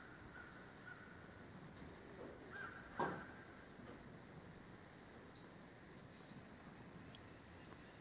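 Quiet outdoor ambience with thin, very high chirps of small birds scattered throughout, a short level bird call near the start and again just before three seconds, and a single sharp knock about three seconds in that is the loudest sound.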